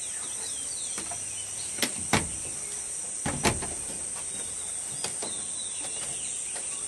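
Steady high-pitched drone of insects, with short bird chirps over it. A few sharp knocks stand out, loudest about two seconds and three and a half seconds in.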